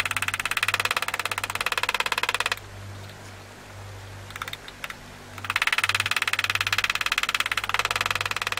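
Steel engraving tool cutting into steel plate: a rapid, even clicking in two runs, the second starting a few seconds in after a short pause.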